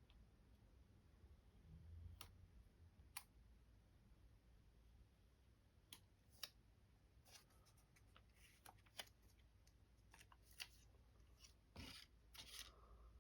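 Near silence broken by faint small clicks and brief rustles of hands handling a GoPro and a tempered-glass screen protector kit. The clicks come sparsely at first, grow busier in the second half, and are loudest just before the end.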